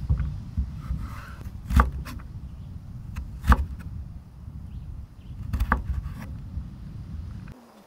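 Large kitchen knife slicing carrots into julienne strips on a wooden chopping block, the blade knocking on the wood three times, about two seconds apart, with fainter cuts between, over a low rumble.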